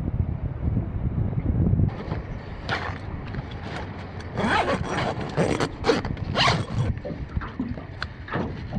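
Canvas swag being zipped closed and packed: several quick rasping zip strokes with rustling heavy canvas. Wind rumbles on the microphone for the first two seconds.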